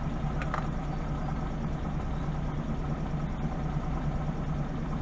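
Car engine idling with a steady low hum, the car standing still in stopped traffic.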